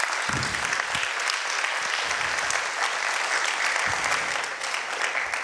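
Audience applauding: steady, dense clapping from many people that thins out near the end.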